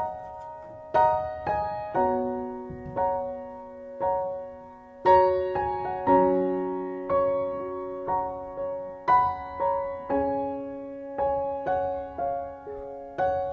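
Soft background piano music: single notes and chords struck at an unhurried pace, each left to ring and fade.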